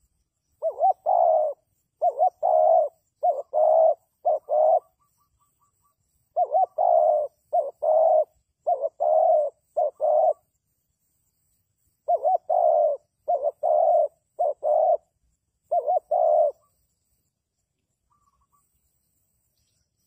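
Spotted dove cooing: three phrases of repeated low, hoarse coos, each about four seconds long, separated by short pauses.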